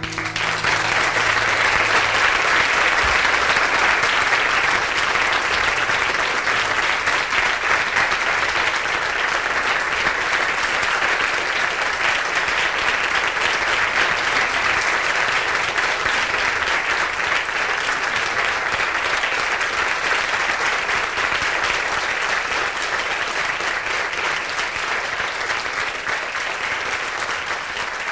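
Concert audience applauding after the last guitar notes of a song die away, a steady clapping that slowly grows quieter toward the end.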